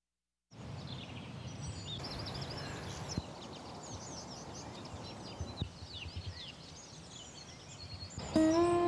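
Many birds chirping and singing over a steady outdoor hiss, as in a morning chorus. Near the end a loud, steady, horn-like tone starts and holds, louder than the birds.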